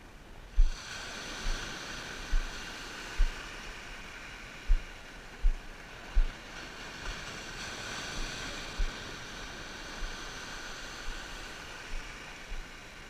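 Steady rush of sea water and wind on the coast, with a dozen sharp low thumps on the microphone spread through it.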